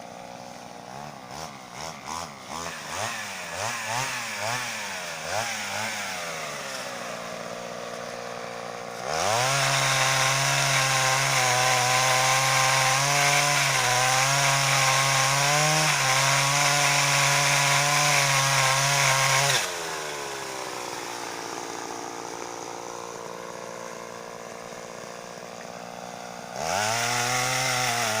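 Mitsubishi TL26 two-stroke brushcutter engine driving a pole saw. It idles with short throttle blips, then is held at full revs for about ten seconds. It drops back to idle and revs up again near the end.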